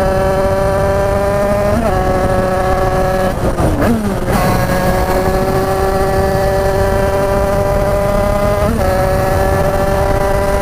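Tuned Derbi two-stroke 50cc-class motorbike engine running hard at a nearly steady high pitch. A short blip comes about two seconds in and another near the end. Around four seconds in the pitch drops briefly, then it picks up again.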